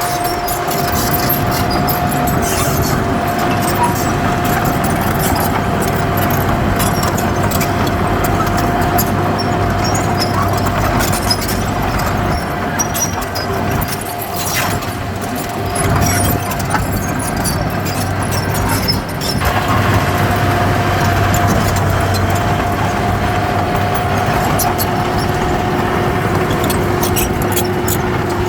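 Heavy diesel earthmoving machinery running steadily, with a steady high-pitched whine over the engine and a light, continuous rattle.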